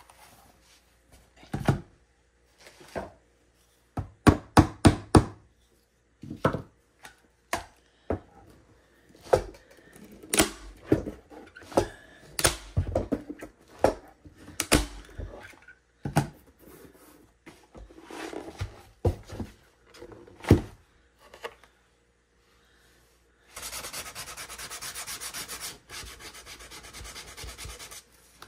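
A series of knocks and clicks from handling, then, for the last few seconds, sandpaper rubbing quickly back and forth along the edges of a painted wooden shelf to distress them down to bare wood.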